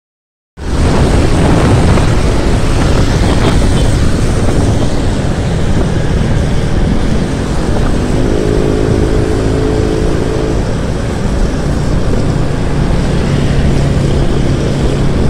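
Motorcycle riding along: a loud, steady rush of wind and road noise over the engine, starting suddenly about half a second in. Around the middle a pitched engine note rises a little and holds for about three seconds.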